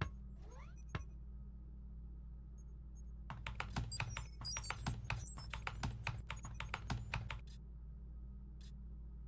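Quick typing on a computer keyboard: a run of key clicks lasting about four seconds, starting a few seconds in, with faint high electronic chirps among them, over a steady low hum. A couple of single clicks follow near the end.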